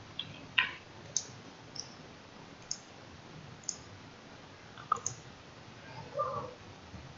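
Quiet, unevenly spaced clicks of a computer mouse and keyboard, about eight over five seconds. About six seconds in comes a short, soft sound of a different kind.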